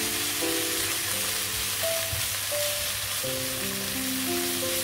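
Pounded chilli, shallot and shrimp-paste mixture sizzling steadily in hot oil as it is stir-fried with a wooden spatula in a nonstick wok. Background music plays a slow melody underneath.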